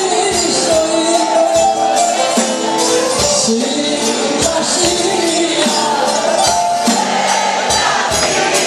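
Live band playing a Greek popular song: a woman singing into a microphone over guitar and jingling percussion, loud and continuous.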